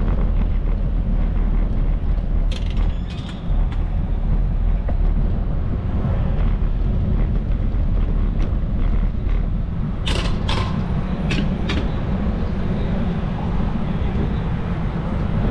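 Steady wind rumble on the microphone of a moving bicycle, mixed with street and traffic noise. A few sharp clicks or rattles come a few seconds in and again about ten seconds in.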